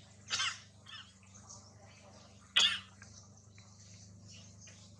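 Two short, sharp animal calls about two seconds apart, the second louder and more abrupt, over a low steady hum.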